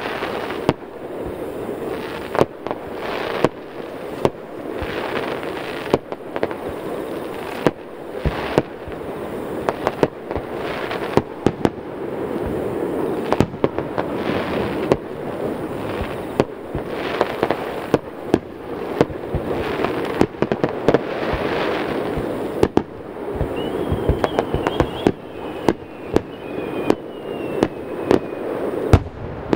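Fireworks display: shells bursting in quick succession with sharp bangs, several a second at times, over continuous crackling. Thin whistles glide in pitch about three-quarters of the way through.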